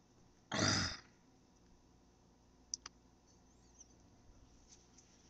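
A man's heavy breath out close to the microphone, about half a second long, followed near the middle by two faint clicks.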